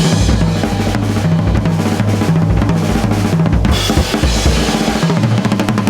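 Music led by a drum kit, kick and snare hitting steadily over a bass line that steps between notes, starting abruptly.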